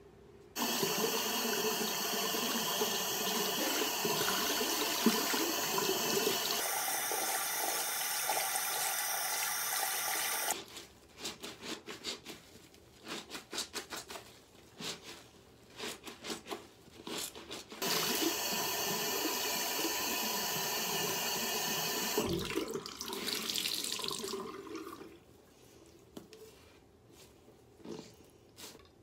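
Bathroom faucet running into a sink while a soapy plush toy is scrubbed under it by hand. The tap runs twice, and between and after the runs come short, irregular wet squelches as the soaked toy is squeezed and rubbed.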